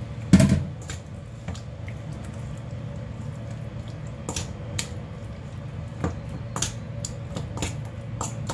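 Metal spoon clinking and scraping against a stainless steel bowl as raw chicken breasts are turned in a wet marinade, with a loud thump about half a second in. A steady low hum runs underneath.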